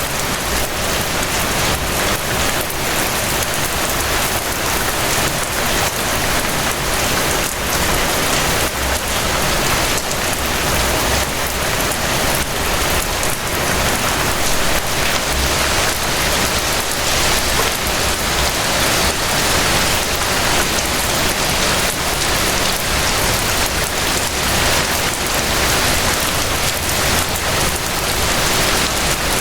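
Steady rain falling, a dense even hiss with many individual drops striking a surface and a low rumble underneath.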